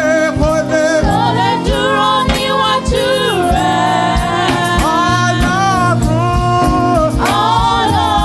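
Church praise team singing a gospel worship song with a live band: several voices over a steady drum beat and bass.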